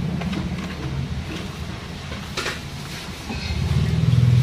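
A low engine hum, steady in pitch, that fades a little and then grows louder near the end, with one faint click about halfway.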